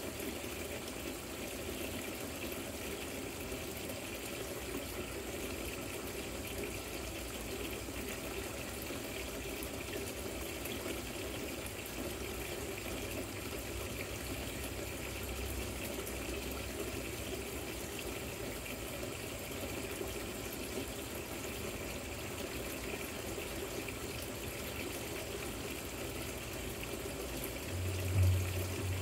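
Artificial rock waterfall fountain with water running and trickling down the stones, a steady even splashing. A low hum comes in near the end.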